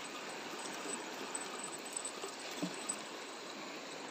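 Steady rush of flowing river water, with a few faint small ticks.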